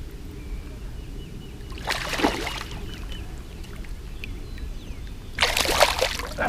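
Water splashing twice, about three seconds apart, each burst lasting about a second.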